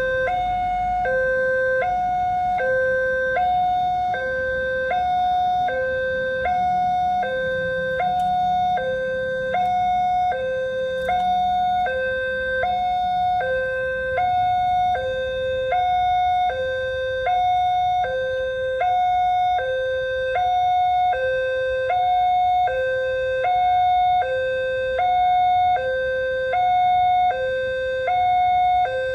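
Railway level-crossing warning siren sounding a steady two-tone hi-lo alternation, about one high-low cycle every second and a half, signalling an approaching train. A low rumble runs underneath, strongest midway through.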